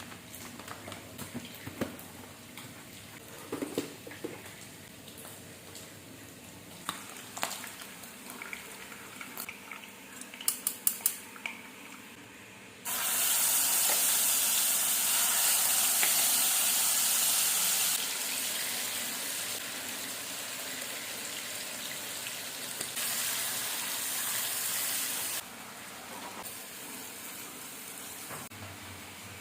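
Light clinks and knocks of kitchenware being handled, then a kitchen tap turned on about halfway through, water running steadily into a sink for about twelve seconds before it is shut off abruptly.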